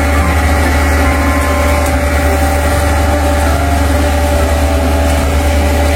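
Steady engine idling sound from a toy cement mixer truck: a low, unchanging rumble.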